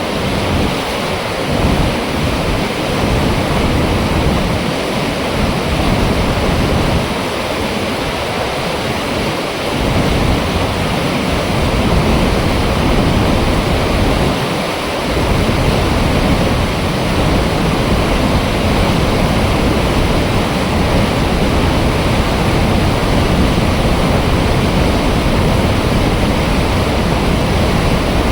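Water rushing in a steady, loud torrent through an open dam flap gate.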